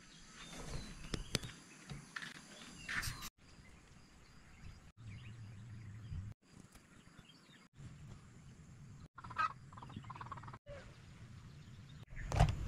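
Faint outdoor background with a few light knocks in the first few seconds and a short louder sound about nine seconds in, broken repeatedly by abrupt cuts to silence.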